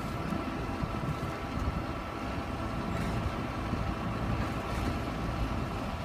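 John Deere 2264 combine harvester's diesel engine running steadily: a low rumble with a faint, constant whine above it.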